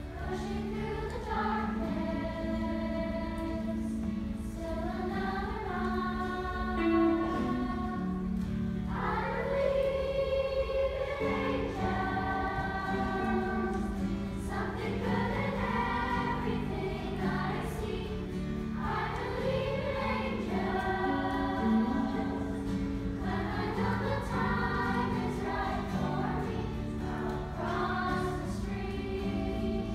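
Children's choir singing in unison, accompanied by a guitar playing steady held notes underneath.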